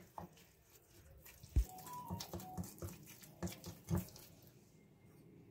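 Metal spoon stirring a thick semolina-and-curd batter in a bowl, with a series of clinks and scrapes against the bowl and wet squishing as water is worked in. A dull thump about one and a half seconds in is the loudest sound.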